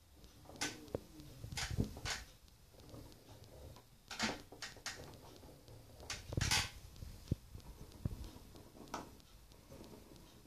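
NTM Prop Drive 28-26 1000KV brushless motor handled and spun by hand, unpowered: irregular clicks and knocks over a rough low rumble, with a faint falling tone about a second in as it spins down. The roughness is from a bad bearing.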